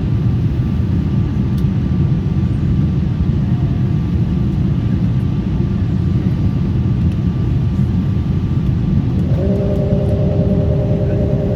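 Steady, loud low rumble of an Airbus A340 airliner heard from inside the cabin. About nine seconds in, a steady hum of several tones joins the rumble and holds.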